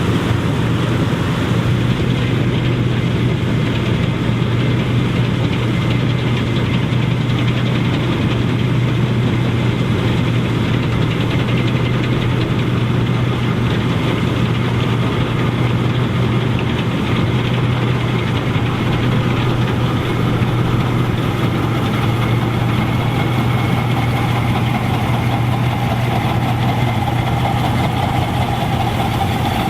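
Massey Ferguson 630S self-propelled combine running steadily while harvesting barley: a constant low engine hum over the even rushing noise of the machine at work.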